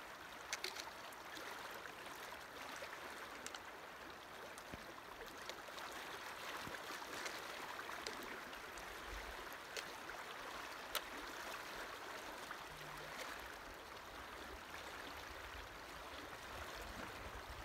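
A shallow river flowing over a gravel bed: a steady, fairly faint rush of moving water, with a few small clicks.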